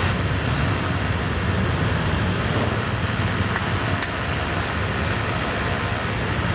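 Steady street traffic noise: a continuous wash of passing vehicle engines and tyres.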